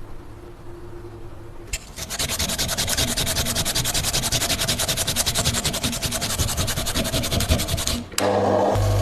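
Abrasive rubbing, sanding-like, on a surface in rapid, even strokes, many a second, starting about two seconds in. Near the end it cuts off and a louder steady low hum takes over.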